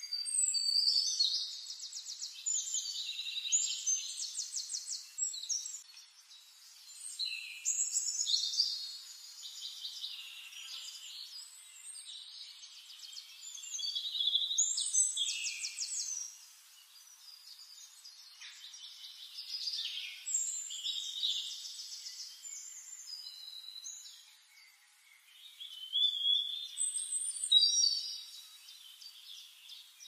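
Songbirds singing: phrases of quick trills and whistles every few seconds, with short lulls between them and the loudest phrase near the end.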